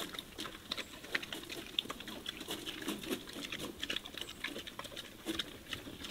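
Iberian pigs eating supplemental feed at a metal feeder trough: a rapid, irregular crunching and clicking of chewing.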